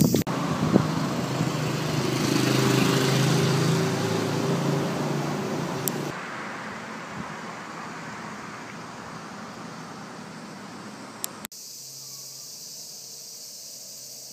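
A road vehicle passes, its engine hum and tyre noise swelling over a couple of seconds and then fading. About eleven seconds in the sound cuts to a steady rush of river water spilling over a weir.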